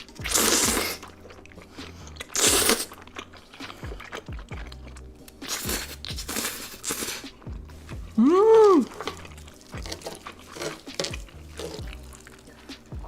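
Close-miked mukbang eating: crunchy bites near the start, about two and a half seconds in and about six seconds in, with chewing between them over quiet background music. A short rising-then-falling hum, the loudest sound, comes about two-thirds of the way through.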